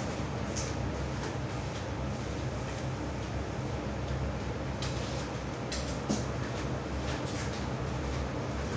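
Steady low hum with a few faint clicks and knocks from things being handled.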